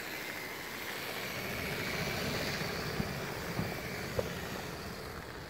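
Lego model train's small electric motor whining as the locomotive pushes a snowplow through snow, over a steady hiss. Three short clicks come about half a second apart midway.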